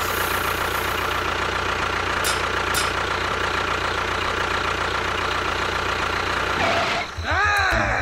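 Small electric motor of a miniature DIY toy tractor whirring steadily as it tips its trailer of dry beans. About a second before the end the whirring stops and a cartoon sound effect with sliding pitch comes in.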